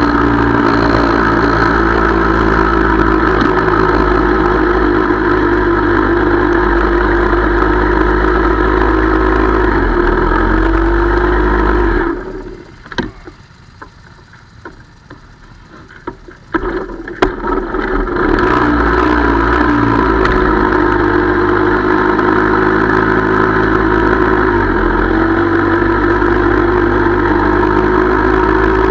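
Motorcycle engine idling close by with a steady, even note. About twelve seconds in it cuts out, stays quiet for about four seconds apart from a few clicks, then starts again and idles on.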